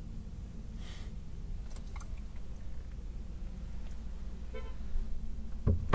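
Steady low vehicle rumble heard from inside a van's cab. About four and a half seconds in there is a short pitched toot, and just before the end a thump.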